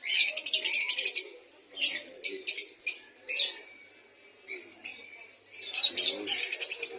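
Songbirds at a bird market singing: a rapid high trill of about a second right at the start and another near the end, with shorter chirps and trill fragments in between.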